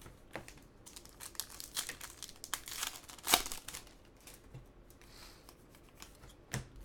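Foil trading-card pack wrappers crinkling and tearing as packs are opened: a run of sharp crackles from about a second in, loudest a little past the middle, then a single snap near the end.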